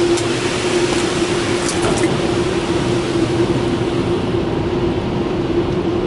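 Rinse water spraying onto a car in a Ryko SoftGloss XS rollover car wash, heard from inside the cabin as a steady hiss over a steady hum. The spray's hiss thins out about four seconds in.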